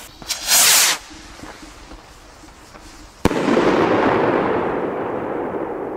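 Firework shell rocket (Magnum Shell Rocket) launching with a loud, short whoosh. A few seconds later comes a sharp bang from its shell burst, followed by a rumbling echo that slowly fades.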